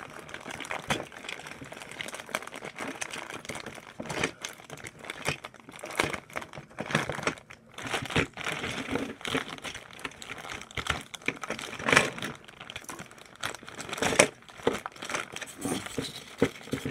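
Clear plastic packaging crinkling and crackling as it is handled and pulled off a toy train, in irregular rustles with sharper snaps now and then, the loudest about twelve seconds in.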